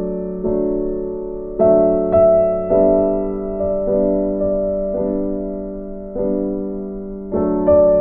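Background music: a piano playing slow chords, each struck about once a second and left to fade.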